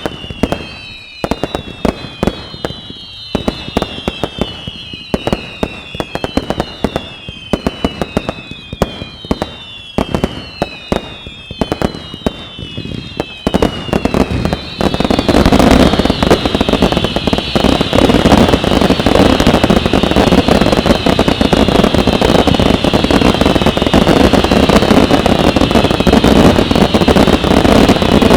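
Fireworks display: repeated whistles falling in pitch, each a second or less long, mixed with sharp cracks. About halfway through, a much louder, dense barrage of crackling and bangs sets in and continues, with the whistles still heard through it.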